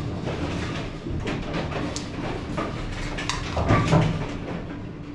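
Small metal clutch parts being handled on a steel workbench: rag wiping, rubbing and scattered clinks and knocks, the loudest about three and a half to four seconds in. A steady low hum runs underneath.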